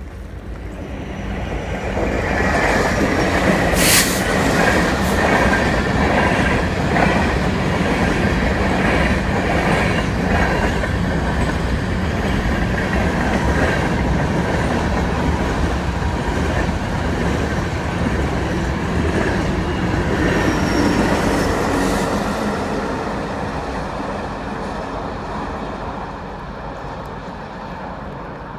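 Freight train passing close by, its wheels clattering over the rail joints with a thin metallic squeal. It builds to full loudness within the first couple of seconds, with a sharp crack about four seconds in and another near 22 seconds, then fades away over the last several seconds.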